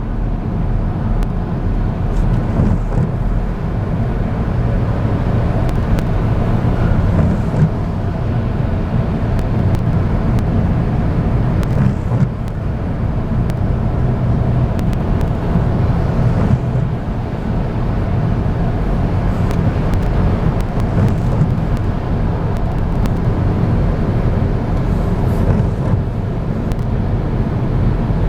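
Steady road and engine noise of a car being driven, a continuous low rumble with a few faint ticks.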